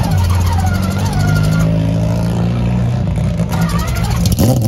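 Mazda 767B's four-rotor rotary engine running at a steady idle, with a rev beginning near the end.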